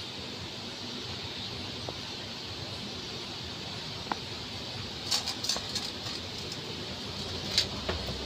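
Steady hiss with a few light clinks of steel dishes as cats feed at them: a cluster about five seconds in and a sharper one near the end.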